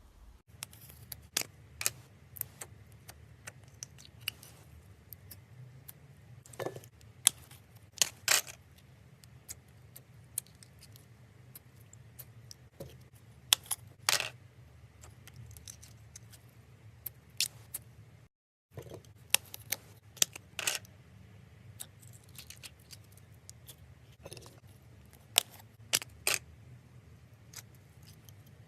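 Slime being squeezed, stretched and poked by hand, giving irregular sharp sticky clicks and small pops over a low steady hum.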